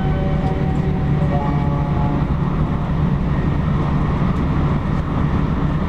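Steady running noise heard inside a car of an E4 series Max double-deck Shinkansen: an even, low rumble from the train moving along the track.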